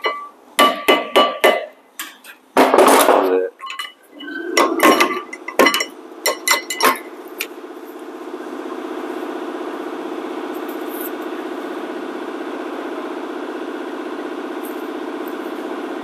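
Hammer tapping on a rusty rear brake caliper bracket to knock a stuck brake pad loose: a quick run of sharp metallic taps and clanks that ring briefly, for about the first seven seconds. After that a steady mechanical hum carries on for the rest.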